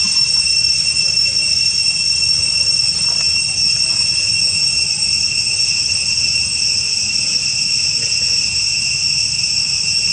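Steady, loud, high-pitched drone of a forest insect chorus, unbroken throughout.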